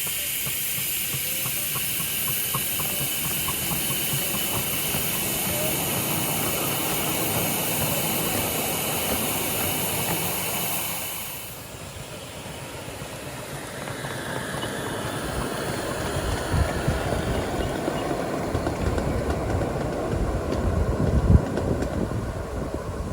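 Miniature steam locomotive blowing down: a loud, steady hiss of escaping steam that cuts off suddenly about eleven and a half seconds in. After it comes a low rumble of wind on the microphone with a few thumps.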